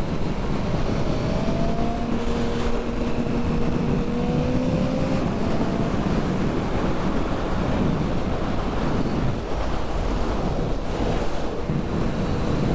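Honda CB650R's inline-four engine, through an IXIL Hyperlow XL exhaust, running at speed under heavy wind and road noise. Over the first few seconds its pitch rises slowly as the bike accelerates, then the engine is mostly buried in the wind.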